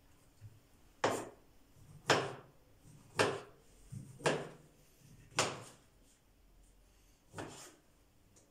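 Knife cutting through peeled oranges onto a plastic cutting board, slicing them into rounds: six strokes, about one a second, with a longer gap before the last.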